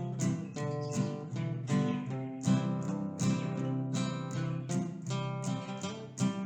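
Acoustic guitar instrumental: a picked melody of sharply plucked notes over sustained low bass notes.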